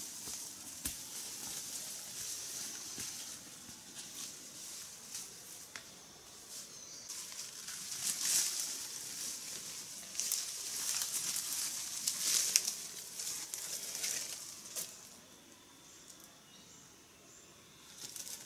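Footsteps and bodies pushing through forest undergrowth: dry leaf litter crunching and leaves and stems rustling in uneven surges, with scattered sharp twig snaps. It quietens near the end.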